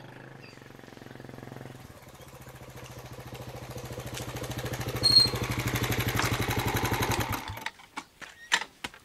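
Motorcycle engine approaching at low speed, its even pulsing growing louder as it nears, then switched off about seven and a half seconds in. A few sharp clicks and knocks follow. A single brief high-pitched chirp sounds about five seconds in.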